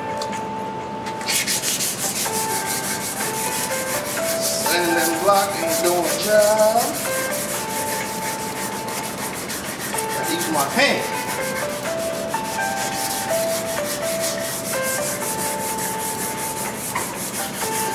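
Sheet sandpaper worked by hand over the painted steel top of a metal cabinet in quick back-and-forth strokes, stripping old paint and rust. The scrubbing starts about a second in, with a tune playing underneath.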